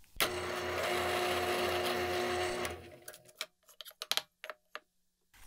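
Benchtop drill press running as a Forstner bit bores into a cedar wheel blank, a steady motor hum with a low pulsing; about three seconds in the motor winds down, followed by a few light clicks.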